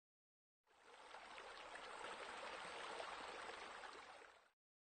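Faint flowing, splashing water, like a small rock waterfall spilling into a pool. It fades in just under a second in and fades out a little before the end.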